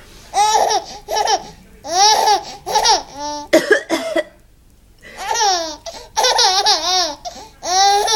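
Baby girl laughing in short, high-pitched bursts, tickled by her mother's coughing. Two short coughs come about three and a half seconds in, then the laughter pauses for about a second and starts again.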